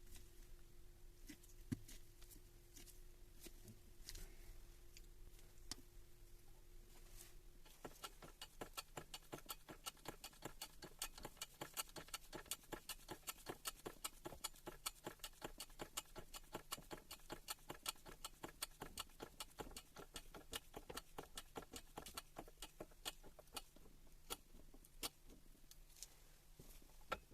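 Faint rapid light clicking, several clicks a second, starting about eight seconds in and dying away near the end, over a faint steady hum.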